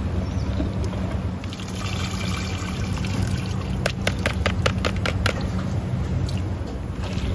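Liquid poured through a plastic colander and splashing into a large pot of soup broth, followed about halfway through by a quick run of sharp clicks. A steady low hum runs underneath.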